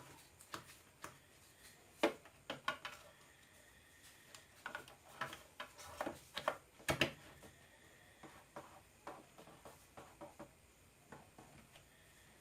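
Irregular clicks and light knocks of small hard parts and tools being handled, a few sharper taps among them, with no motor running.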